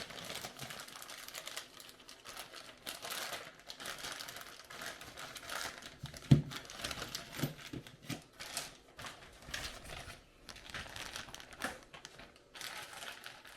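Plastic bags of small hardware and parts crinkling as they are handled, with a sharp knock about six seconds in and a few lighter taps after it.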